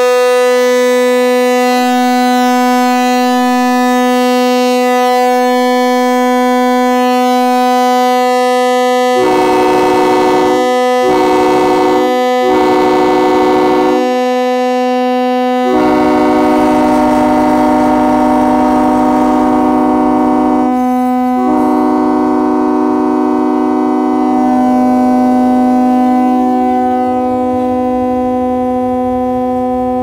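Air-powered train horns blowing a loud chord held on without a break, with a second horn chord sounding over it in separate blasts from about nine seconds in: three blasts, then a long one of about five seconds, then another held on to the end.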